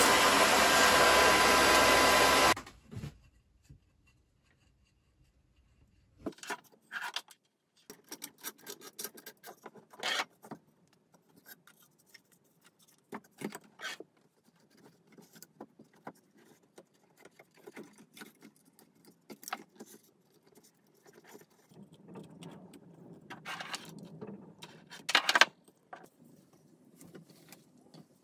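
A table saw runs loud and steady as a thin wooden strip is crosscut, and cuts off abruptly about two and a half seconds in. After a few seconds of near silence come scattered small clicks, taps and rattles of light wood and plastic parts being handled.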